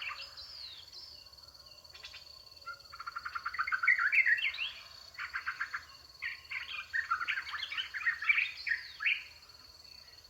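Bursts of quick, high chirping and twittering calls, some in rapid runs of repeated notes, with a faint steady high whine beneath them.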